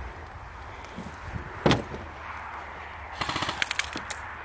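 Airsoft guns firing: a single sharp crack about a second and a half in, then a rapid burst of roughly ten shots near the end.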